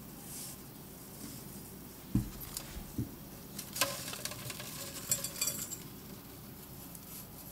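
Stainless steel sink being bumped and scraped: two low thumps, then a second or two of light metallic clicking and clinking with a brief ringing.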